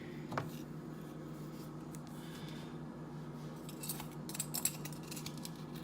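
A measuring spoon scooping granulated erythritol sweetener: a single click about half a second in, then a cluster of short, crisp scrapes and clicks near the end.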